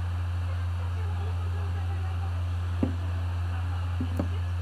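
A steady low hum, with one sharp click a little before the middle and two softer clicks about a second later.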